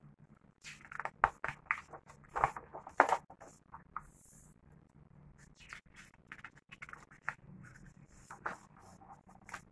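Pages of a picture book being turned and handled: paper rustling and crackling, loudest in a cluster of sharp crackles about one to three and a half seconds in, then lighter, scattered handling sounds.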